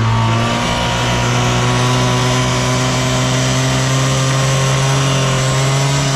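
Honda Cabina 50 scooter's 50cc engine running at steady raised revs, its pitch creeping slowly upward. It runs smoothly with no abnormal noise.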